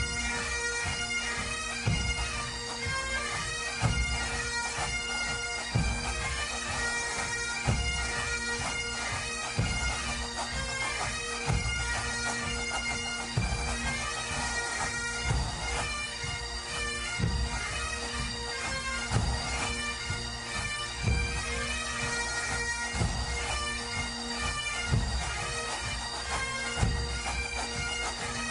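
Scottish bagpipes playing a march tune over their steady drones, with a deep drum struck about every two seconds.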